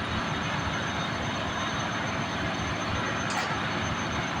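Steady engine-room machinery noise aboard a ship, an even rumble with a thin high tone running through it and a brief high hiss about three seconds in.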